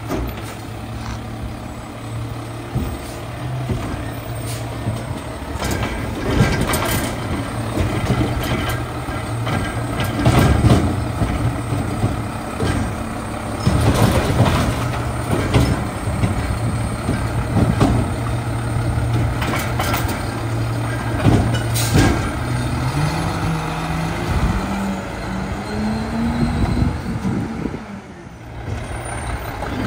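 Mack LR garbage truck with a McNeilus side-loader body running with its hydraulic grabber arm lifting and dumping a recycling tub into the hopper, with a series of loud clanks and bangs from the tub and arm. Late on, the engine note rises over several seconds as the truck pulls away.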